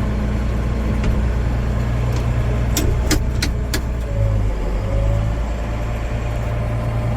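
Case IH Magnum tractor's diesel engine running steadily, with a few sharp clicks about three seconds in and a brief change in the engine note around four to five seconds in.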